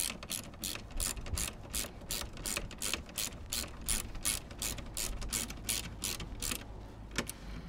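Socket ratchet wrench clicking steadily as it is worked back and forth on a seat-base bolt, about three clicks a second, stopping near the end.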